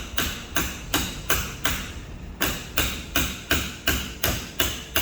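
Hammer giving light, even taps to a thin flat tool wedged behind a car emblem held on with double-sided tape, driving it through the tape to free the badge. About three taps a second, with a brief pause a little after two seconds in.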